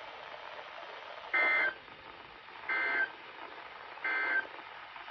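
NOAA Weather Radio SAME end-of-message data burst, heard three times at about 1.4 s intervals. Each burst is a brief warbling pair of high data tones over the radio's faint hiss, and marks the end of the weekly test broadcast.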